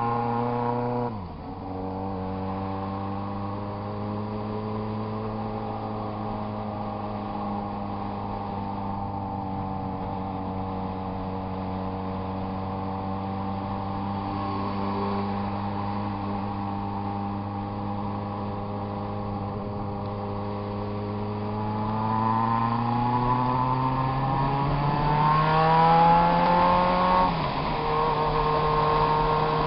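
Yamaha XJ6 motorcycle's inline-four engine running loud and even. Its pitch drops sharply about a second in, holds steady for a long stretch, then climbs slowly over several seconds before dropping sharply again near the end.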